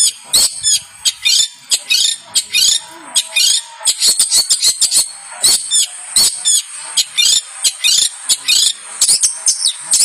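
Long-tailed shrike (cendet) singing a rapid, varied song of chattering notes and quick whistled sweeps, several notes a second without a break.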